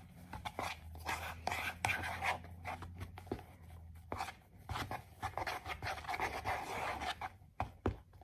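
A utensil stirring glue and shaving cream in a plastic mixing bowl: scraping against the plastic with small ticks and knocks, in two spells. A low steady hum runs under the first half.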